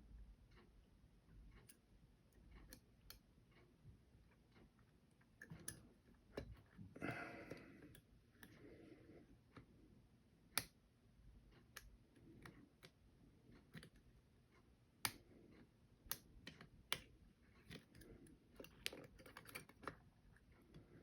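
Faint, irregular small metal clicks and ticks of a pick wire working the levers inside a Belfry lever padlock, with a brief rustling scrape about seven seconds in.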